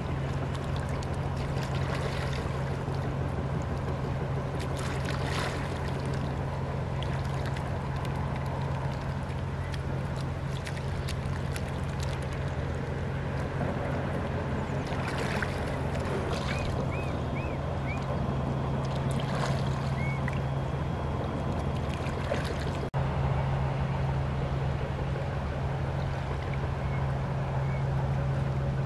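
A boat engine running with a steady low drone, with a few short high chirps a little past halfway.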